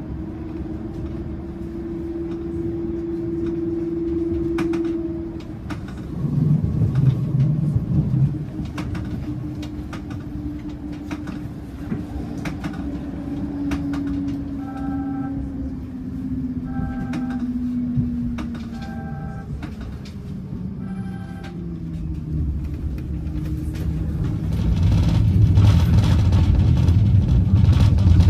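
Inside a moving tram: steady low rumble of the wheels on the rails under a whine that drifts slowly down in pitch midway, growing louder near the end. Midway, four short beeps about two seconds apart.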